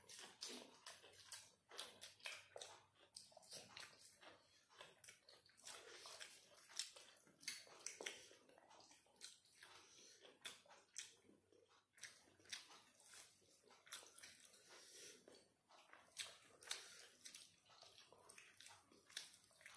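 Close-up chewing and lip-smacking of people eating chicken and rice with their hands: a steady stream of short, irregular wet clicks and smacks.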